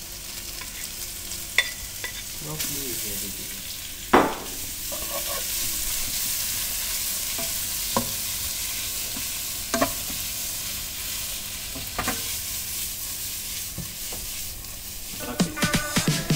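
Sliced smoked beef and garlic sizzling as they fry in hot oil in a wok. The sizzle grows louder a couple of seconds in, and a wooden spatula knocks against the pan a handful of times as the meat is stirred.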